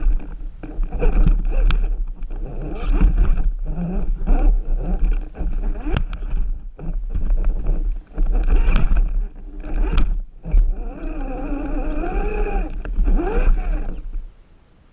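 RC rock crawler's electric motor and geared drivetrain whining under load, with knocks and rattles from the chassis and a low rumble, heard from a camera mounted on the truck. The noise cuts out about a second before the end.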